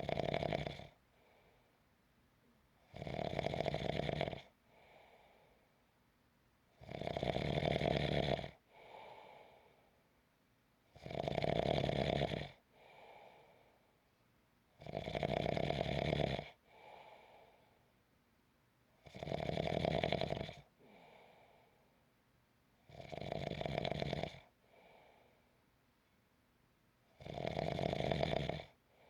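Snoring in a slow, steady rhythm: a loud snore of about a second and a half roughly every four seconds, each followed by a fainter, shorter breath.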